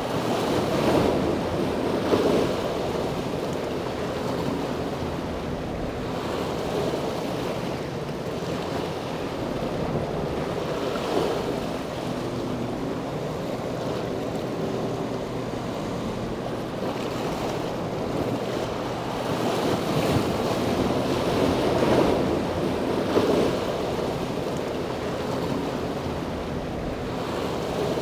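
Wind buffeting an outdoor microphone in gusts, over a low steady hum of boat engines on the water.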